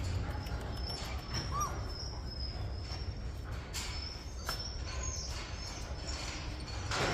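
Jindo puppies moving about and playing: a single short squeak, a few soft knocks and scuffs, and thin high chirps over a steady low rumble.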